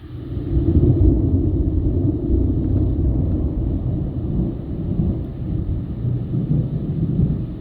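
Loud rolling thunder from a thunderstorm. It builds within about a second, then rumbles on and slowly eases off.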